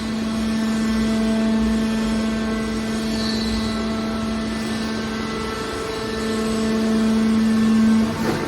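Hydraulic can baler's power unit running: the electric motor and pump give a steady hum over a low rumble, which eases briefly midway and stops just before the end.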